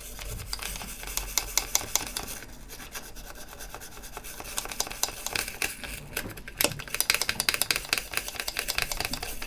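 Toothbrush bristles scrubbing the inside of a plastic battery compartment wet with isopropyl alcohol, in quick back-and-forth scratching strokes that get faster and louder about two-thirds of the way through. The scrubbing is loosening old battery corrosion and rust from the contact area.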